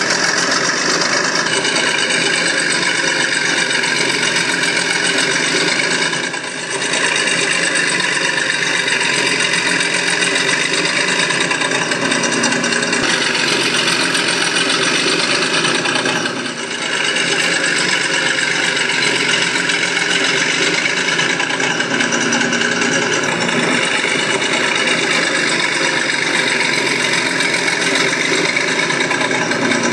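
An engine running steadily at a constant speed, dipping briefly twice.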